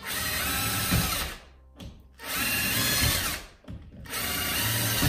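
Cordless drill with a small bit boring a row of small holes into a wooden door frame, running in three bursts of about a second each with short pauses between them.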